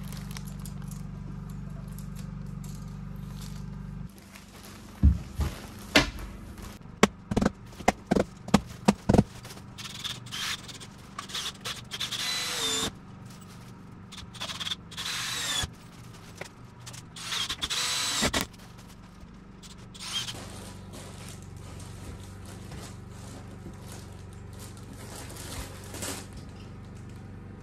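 A quick run of sharp knocks, then a cordless drill running in three bursts of a second or two each.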